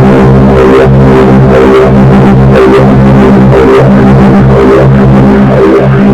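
Drone metal: loud, heavily distorted sustained low guitar and bass drone under a dense wash of noise, pulsing roughly once a second.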